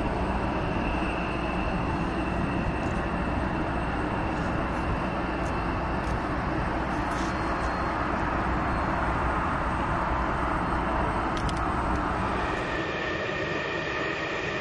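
F-35A Lightning II's single F135 turbofan running at full takeoff power: a loud, steady jet noise with a high whine. Near the end the sound cuts to F-35s taxiing, the jet noise thinner and carrying two steady whining tones.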